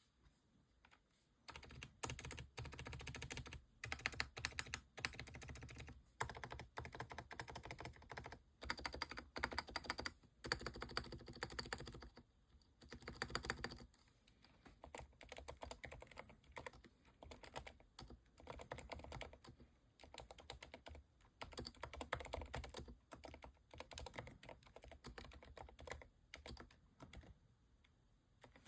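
Fast typing on a Keychron V10 Pro Max mechanical keyboard with Cherry MX2A Silent Red and TTC Silent Brown switches: rapid, fairly soft keystrokes in bursts of a few seconds with brief pauses between them, starting about a second and a half in.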